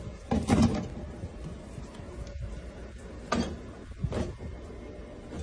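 Wooden kitchen cabinet door knocking as a dog pulls it open with its mouth: a loud knock about half a second in, then two more knocks past the middle.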